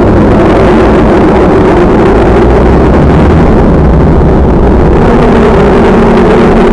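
Corvette V8 engine held at high revs during a drift, loud and steady with a deep low rumble.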